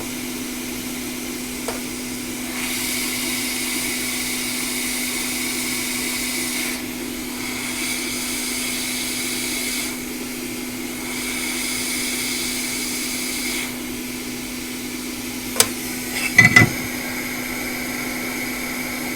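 Hot air rework station blowing in three spells of airy hiss over a steady bench hum, during chip rework on a logic board. A sharp click is followed about a second later by a short cluster of louder clicks near the end.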